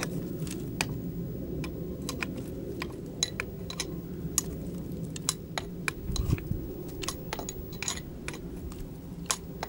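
Small metal clicks and clinks at irregular intervals, two or three a second, as hand wrenches work the top nut of a rear shock absorber, the shaft held so it doesn't turn. A dull thump comes about six seconds in, over a low steady rumble.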